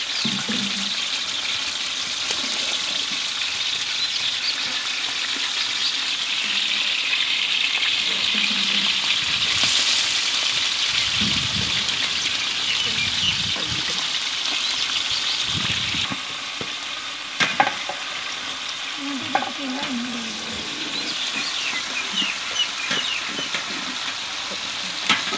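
Raw chicken pieces sizzling in hot oil in a large pot: a steady frying hiss that grows a little louder toward the middle and drops back about two-thirds of the way through. A few sharp clicks near the end.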